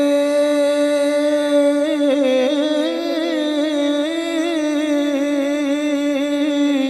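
A man singing an Urdu naat, holding one long note that breaks into wavering melodic turns about two seconds in.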